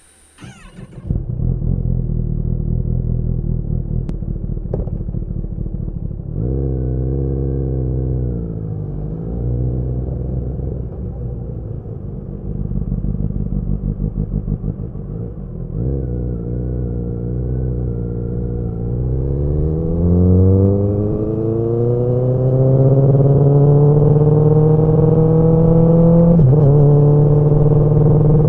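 Kawasaki ZX-10R sportbike's inline-four engine and exhaust under way: it comes in loud about a second in and runs low and fairly steady, then accelerates with a steadily rising pitch from about two-thirds of the way in, with a brief dip like a gear change near the end.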